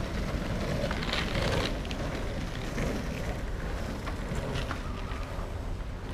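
Steady wind buffeting on the microphone over a low rumble of wheels rolling on asphalt, with a few faint clicks.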